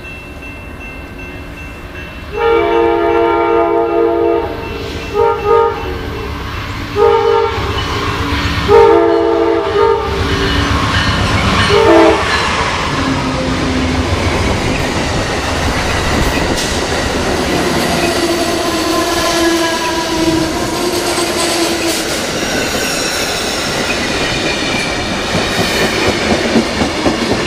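Amtrak P42DC locomotive horn sounding a series of long and short blasts as the train approaches the grade crossing by the station. The Amfleet passenger cars then roll past with a steady rumble and clickety-clack of wheels over the rail joints.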